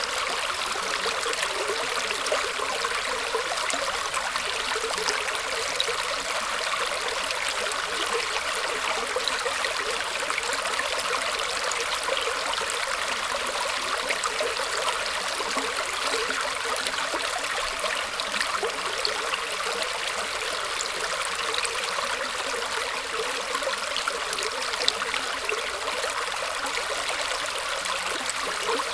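Shallow stream water flowing and trickling through tree roots: a steady, even splashing babble with many small drips and gurgles.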